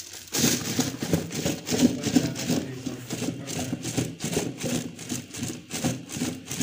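Boiled amla (Indian gooseberries) tumbling and knocking about inside a plastic jar as it is shaken and rolled to coat them in salt, chilli and spices: a busy, uneven rattle starting just after the beginning.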